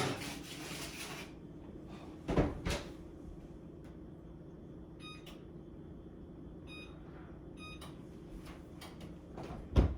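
Oven door knocking shut twice, then three short electronic beeps from the oven's control panel as it is set, with another knock near the end over a low steady hum.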